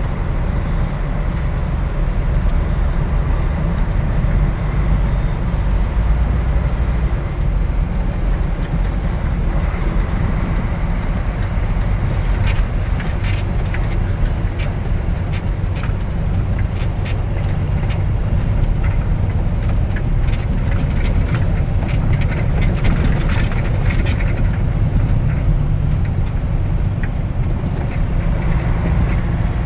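Grain truck's engine running as it drives, a steady low rumble; from about twelve seconds in, a run of sharp clicks and rattles rides over it.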